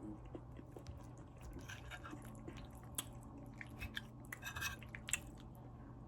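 Close-up chewing of crispy fried chicken: wet mouth sounds with irregular sharp crunches and crackles of the fried crust, coming in clusters.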